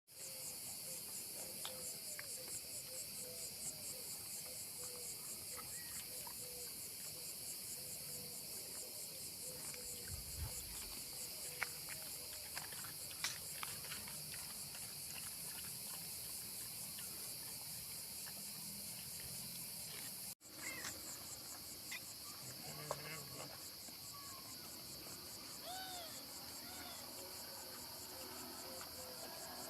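Steady, high-pitched chorus of chirping insects, briefly cut off about twenty seconds in.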